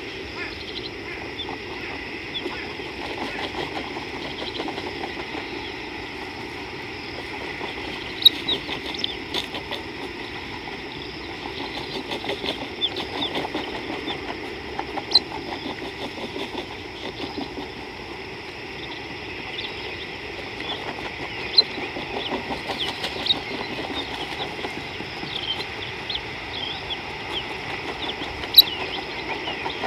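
Outdoor bush ambience: a steady insect drone under many short bird chirps, with a few sharp clicks spaced several seconds apart.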